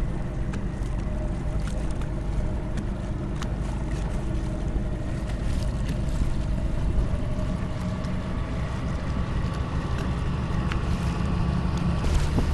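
Small boat's engine running steadily under way, with wind on the microphone.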